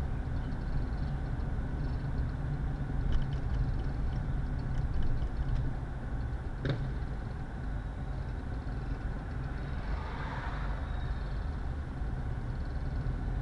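Car driving at steady speed, heard from inside the cabin: a continuous low engine and road rumble, with a sharp click about halfway through.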